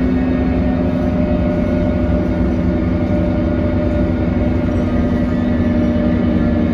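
Inside a 2018 New Flyer XD40 diesel transit bus under way: a steady engine and drivetrain drone with a strong constant whining tone over a low rumble, the sound called horrible on this bus.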